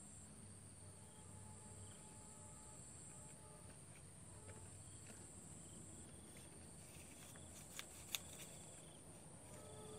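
Near silence outdoors: a faint, steady high chirring of insects. Two brief soft clicks come about eight seconds in.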